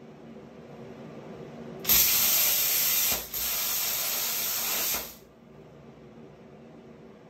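Everlast 50 A plasma cutter on a CNC torch, set to 38 A and 70 psi, cutting 1.6 mm hot-rolled steel. A loud hiss starts sharply about two seconds in, breaks off for an instant, resumes a little quieter, and stops after about three seconds.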